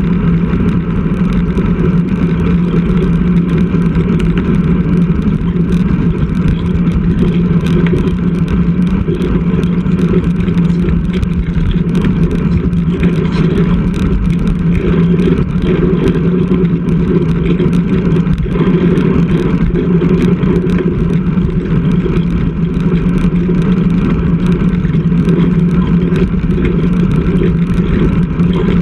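Steady rush of wind and road noise picked up by a GoPro mounted on a road bike while riding, with a constant low hum and many small rattling ticks.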